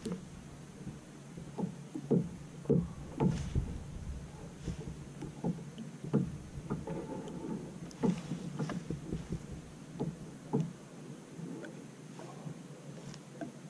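Water lapping against the hull of a sit-on-top kayak, a run of irregular small slaps and knocks.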